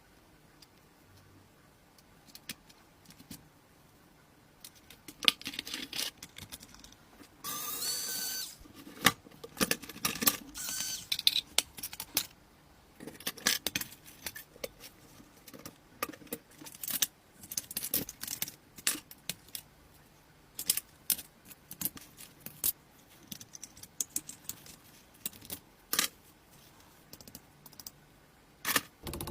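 Small metal objects clinking and clattering in irregular bursts, like hand tools and parts being handled during car work, with a brief metallic ringing scrape about eight seconds in.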